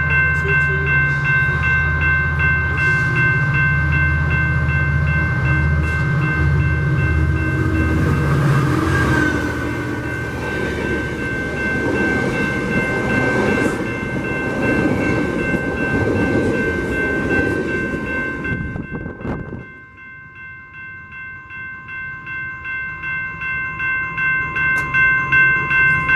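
A train passes with a low engine rumble, then steady running noise, which falls away about three-quarters of the way through. Throughout, a grade-crossing warning bell keeps ringing with a regular pulse, and it grows louder again near the end.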